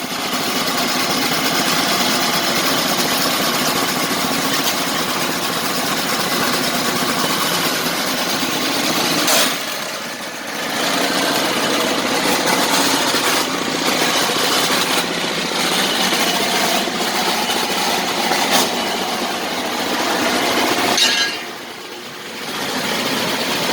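Engine of a well-drilling rig running under load as it hoists the drill rods, a steady loud mechanical racket with a few knocks, easing briefly about ten seconds in and again near the end.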